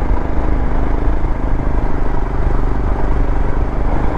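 Royal Enfield Himalayan's single-cylinder engine on its stock exhaust, running steadily in second gear under way, carrying a pillion passenger.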